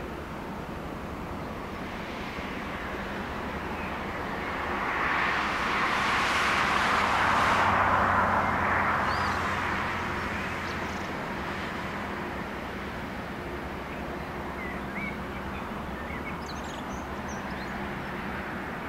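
A vehicle passes close by, its noise swelling up over a few seconds and fading again in the middle, over the steady low engine drone of a Rhine container motor vessel under way. A few short bird chirps come near the end.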